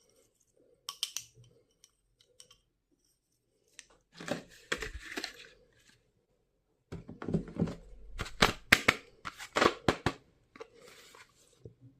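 Stationery packaging being handled and opened by hand: several irregular spells of rustling and tearing with sharp clicks, the longest and loudest in the second half.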